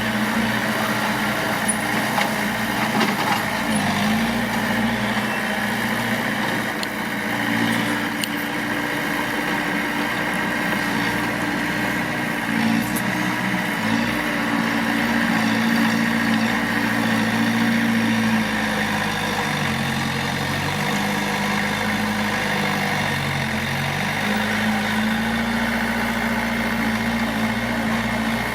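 Mitsubishi D20 bulldozer's diesel engine running steadily at work, its pitch dipping and coming back up twice about two-thirds of the way through.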